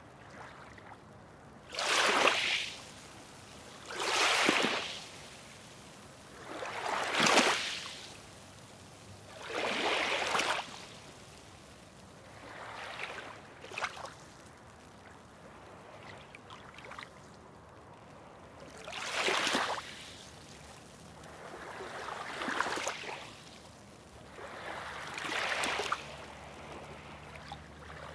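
Small waves washing in, each surge a second or so of splashing that rises and falls away, about eight in all and irregularly spaced every two to three seconds, with a longer lull midway, over a low steady water hiss.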